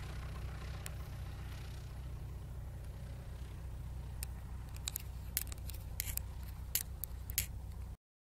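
Single-engine light aircraft's piston engine running at low taxi power, a steady low drone. From about halfway through, a scattering of sharp clicks.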